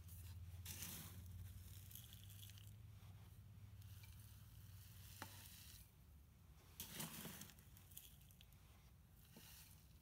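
Handfuls of coarse, gritty potting mix scooped from a foil tray and poured into a clay pot: the grains rustle and crunch in a few short, faint bursts, loudest about a second in and about seven seconds in, with a single sharp click about five seconds in. A steady low hum runs underneath.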